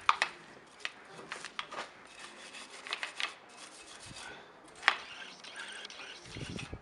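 Hands working on a shock absorber strut: rubbing and scraping, broken by scattered sharp clicks and knocks. The loudest knocks come just after the start and about five seconds in, with a dull low thud near the end.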